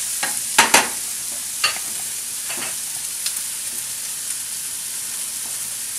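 Chopped onions sizzling in butter in a skillet on a gas burner, nearly translucent, being stirred with a wooden spoon. A steady high sizzle, with a few sharp knocks about half a second in and again at about a second and a half.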